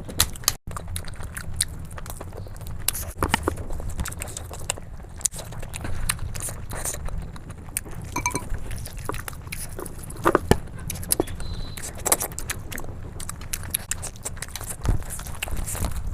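Close-miked eating sounds: wet chewing and mouth noises with irregular short crackles, over a steady low hum.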